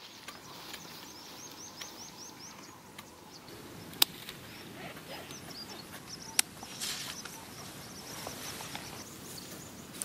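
Outdoor garden ambience with a bird giving a quick run of short, high, falling chirps in the first few seconds. Two sharp clicks, about four and six and a half seconds in, fit pruning shears snipping at the eggplant plants.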